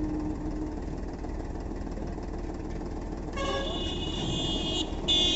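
Powertrac Euro 50 tractor's diesel engine running low and steady as it edges onto the unloading ramps, with a vehicle horn honking over it: a long blast about three and a half seconds in and a short, louder one near the end.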